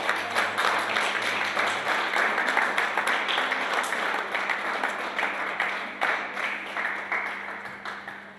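Audience applauding: many hands clapping together, starting at once and fading away near the end.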